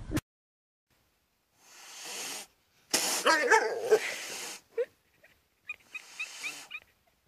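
A pet animal crying out: a loud run of wavering cries lasting about a second and a half in the middle, after a short hiss, with a few faint short high notes near the end.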